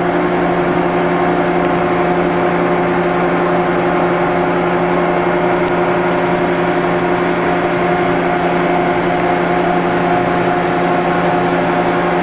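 The rapid traverse motor of a Ritter R1200 door and window frame clamp running, driving the clamp beam down into position: a steady mechanical hum.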